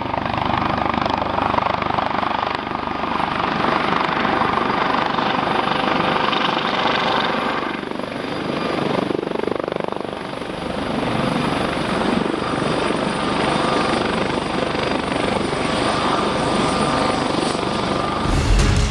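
US Coast Guard MH-65 Dolphin helicopter hovering low and setting down. Its rotor wash and twin turbines make a steady dense noise, with a thin high whine held over it throughout.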